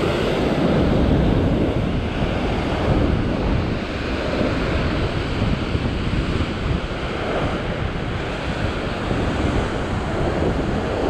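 Heavy ocean surf breaking and washing white water over shoreline rocks, with wind buffeting the microphone.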